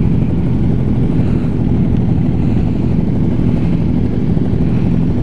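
Motorcycle engines idling steadily, a continuous low rumble.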